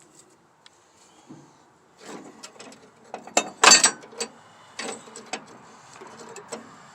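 Metal clicks and knocks of tools and parts as a mower-deck spindle is worked off. They are irregular, with the loudest cluster of knocks about three and a half seconds in.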